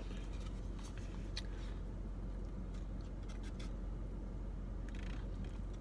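Plastic fork scraping and clicking in a small cup of red beans and rice, a few faint clicks over a steady low hum.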